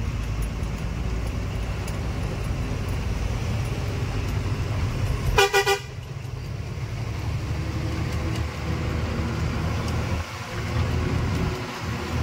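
Steady low engine and road rumble of a truck on the move, with a vehicle horn sounding a quick burst of about three short toots about halfway through.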